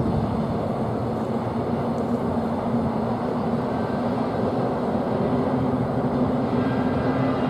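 Greater Anglia loco-hauled passenger train of Mk3 coaches running across a steel girder bridge: a steady rumble of wheels on rails with a low hum that rises slightly near the end.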